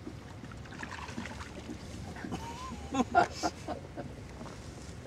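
Steady wind and water noise around a small fishing boat on open water, with a short cluster of brief knocks and voice-like sounds about three seconds in.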